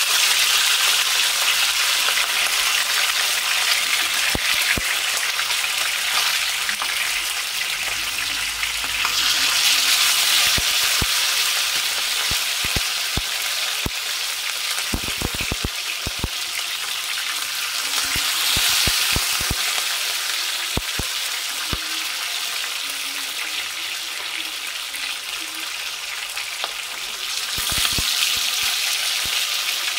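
Chicken pieces frying in hot oil in a nonstick pan: a steady sizzle with scattered pops and crackles. The sizzle swells louder several times, and the crackles come thickest about halfway through.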